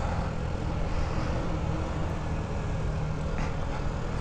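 Honda Ruckus scooter's small 49cc four-stroke single-cylinder engine running at a steady pace while riding, with tyre and wind noise.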